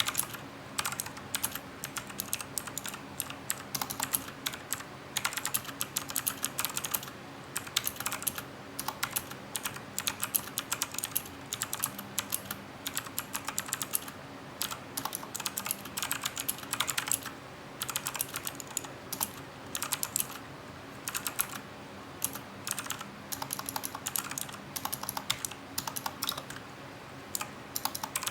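Typing on a Cooler Master CK350 mechanical keyboard with Gateron Blue clicky switches: a quick, continuous run of sharp key clicks, broken by a few short pauses.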